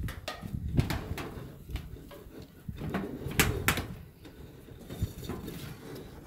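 Work boots stepping and shifting on pressed-metal roof tiles, giving a few irregular sharp knocks from the sheeting, two of them close together about three and a half seconds in.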